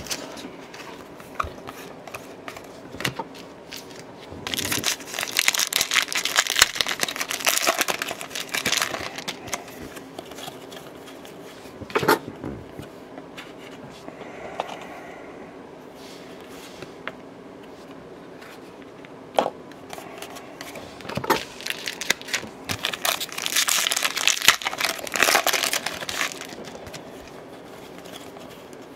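Baseball card pack wrappers being torn open and crumpled in two long crinkling spells, one about five seconds in and one about three-quarters of the way through. Between them come the light clicks and scrapes of trading cards being flicked through and sorted.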